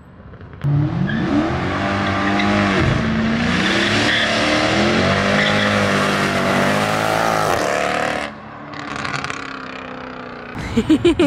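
Mercedes C63 AMG's 6.2-litre M156 V8 through new manifolds and a straight-piped exhaust, revving up and down hard for about seven seconds with the rear tyres squealing in a burnout. It then falls away, and a quick run of loud pulses comes near the end.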